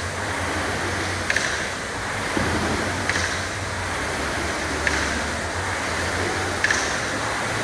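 Air rowing machine being rowed hard: its flywheel fan whirs in a steady surge, with a sharp clack about every 1.8 seconds, one per stroke.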